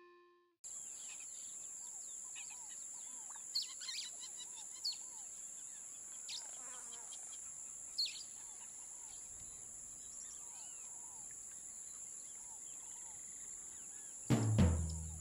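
Birds chirping and calling over a steady high-pitched insect drone, with a few sharper chirps standing out. Music comes in loudly near the end.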